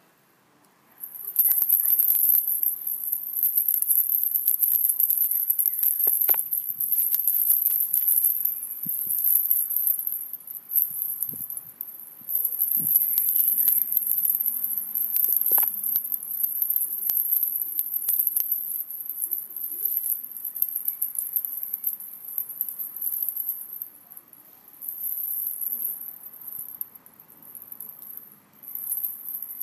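Insect chirring, most likely a cricket: a very high-pitched buzz made of rapid pulses that starts about a second in and runs in long stretches, dipping and returning several times, with a few scattered clicks.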